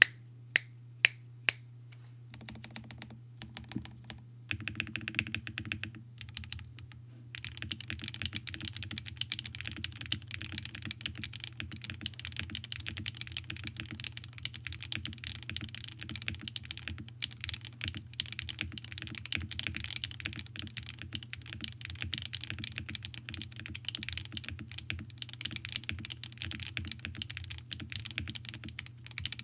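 Bakeneko65 mechanical keyboard with HMX Cloud linear switches on an aluminium plate being typed on. It starts with three sharp clicks, a few scattered keystrokes and short bursts, then steady fast typing from about seven seconds in, over a faint steady low hum.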